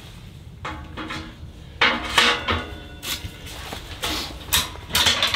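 A metal rod side bracket clinking and rattling against a sheet-metal barrel woodstove as it is slid into the holes in the stove's side, in three or so bursts of metal clatter.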